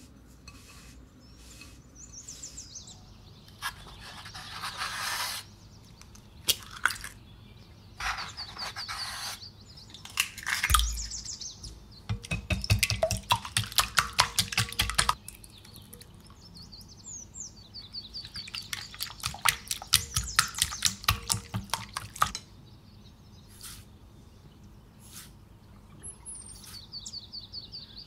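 Eggs beaten with a wire whisk in a ceramic bowl: two bouts of rapid clicking as the whisk strikes the bowl, with a dull knock just before the first. Birds chirp now and then in the background.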